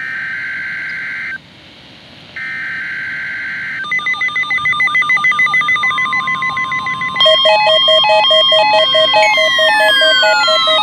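NOAA Weather Radio emergency alert signalling: two short bursts of screechy digital data tones from the SAME header, then from about four seconds in several weather-radio receivers sound their electronic alert beeps and warbles. A steady warning alarm tone near 1 kHz joins them, and from about seven seconds the sound gets louder and more layered, with falling pitch glides near the end.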